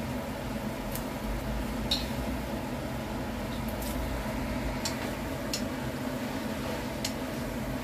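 A steady mechanical hum of kitchen equipment with light clicks and taps scattered through it, a cooking utensil touching the wok as spaghetti is tossed into squid adobo sauce.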